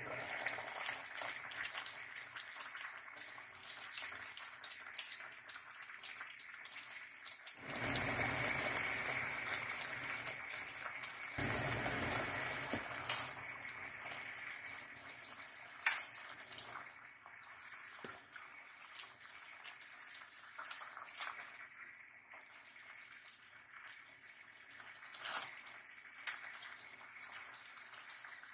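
Pot of vegetables simmering, a steady bubbling hiss with louder stretches as it is stirred, with a few sharp clinks of a metal utensil against the aluminium pot.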